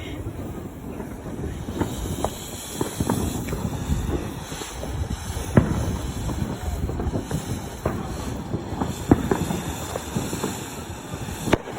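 Consumer firework going off: a continuous rushing noise with sharp pops and crackles scattered through it.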